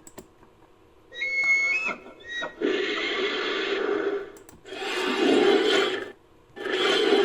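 Sound-designed giant vampire-bat creature calls: a shrill pitched squeal with a bend in its pitch about a second in, a short chirp, then three long raspy screeches, each over a second, with short pauses between.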